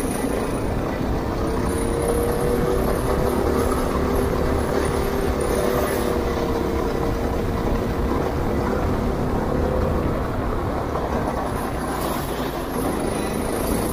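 Go-kart engine running at speed, heard from the driver's seat over a steady low rumble. Its pitch climbs over the first few seconds, holds, then dips about three-quarters through as the driver eases off into a bend, and picks up again near the end.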